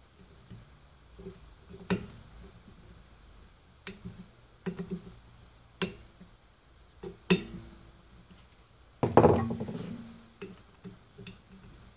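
Scattered metal clicks and taps of hands and tools working on the cover and axle of an e-bike direct-drive hub motor, with a louder clatter and a brief ringing about nine seconds in.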